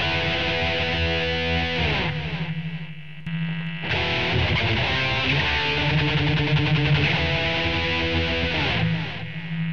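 Ibanez RG370DX electric guitar played through a Line 6 POD 2.0 amp modeller with a delay patch, then a delay-and-compressor patch. Notes and chords ring out with echoing repeats. The playing dies away about two seconds in and starts again just before the four-second mark.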